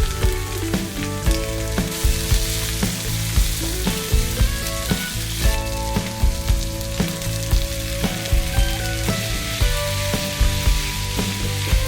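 Pork intestines (makchang) sizzling as they stir-fry in a pan, an even crackling hiss, under background music with a steady beat.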